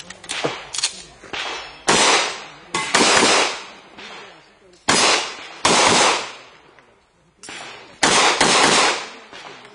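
Pistol fired at targets during a timed IPSC stage: several loud shots, singly and in quick pairs, each followed by a short echo, with pauses of about a second between groups. Fainter sharp cracks come in the first second or so.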